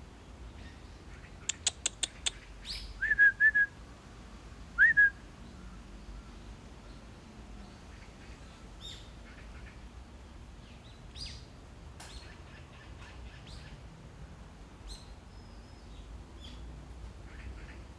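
Birds calling outdoors. A quick run of about five sharp chatter notes comes about a second and a half in, then short rising chirps about three and five seconds in, the loudest. Scattered faint high chirps follow.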